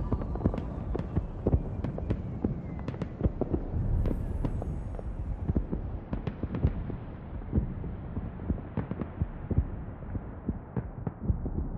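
Irregular sharp cracks and pops over a low rumble, like fireworks or crackling, the sound growing duller toward the end.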